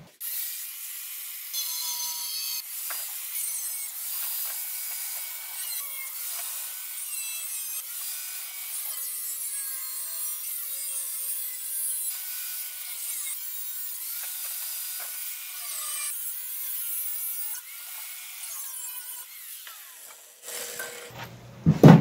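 Angle grinder with a cut-off wheel slicing through the rusted steel shell of a 6-gallon Suburban RV water heater tank: a steady, high-pitched grinding that stops about twenty seconds in, followed by a few knocks.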